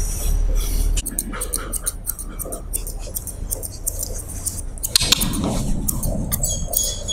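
Grooming scissors snipping through a poodle's coat in quick, irregular cuts, over a steady low hum.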